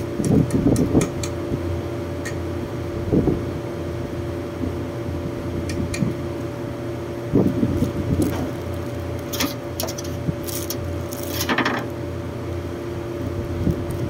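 Steady mechanical hum of rooftop air-conditioning units running, with scattered clicks, knocks and brief metallic clinks from hand tools working at a compressor's terminals.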